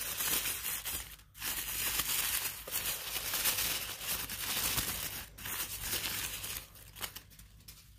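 White wrapping paper crinkling and rustling close by as a small crystal is unwrapped from it by hand, with a brief pause about a second in. The crinkling dies away about seven seconds in.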